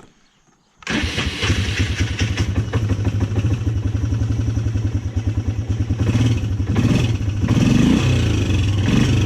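Polaris Sportsman 300 ATV's single-cylinder four-stroke engine. After a near-silent first second it starts and runs with a fast, even firing beat, revving up and down somewhat in the last few seconds.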